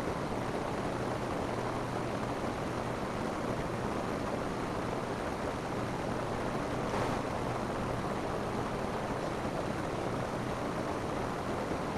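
Steady rain falling on a roof, an even hiss with a brief swell about seven seconds in.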